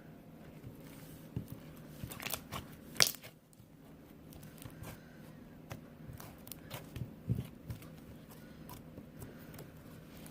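Slime being squeezed and stretched by hand, giving a run of sticky pops and crackles, loudest about three seconds in.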